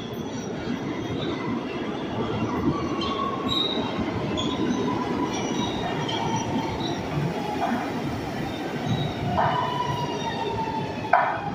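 New York City Subway R211 train pulling into an underground station: a steady rumble of wheels on rail with high squealing tones that slowly drop in pitch as it slows. A few sharp knocks come at even spacing in the second half.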